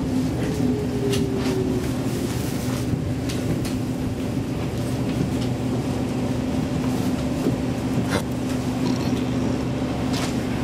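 Inside a Saltsjöbanan C10/C11 electric train creeping along the platform: a steady low electrical hum under the running noise, with a few sharp clicks now and then.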